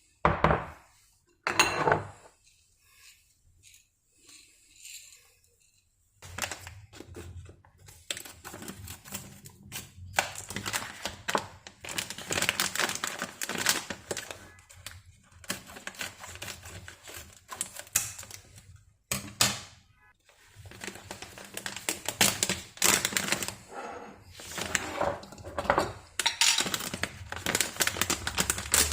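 Kitchen utensils and dishes tapping, knocking and clinking during food preparation. A few separate knocks come first, then about six seconds in a long run of rapid clattering taps starts over a low steady hum.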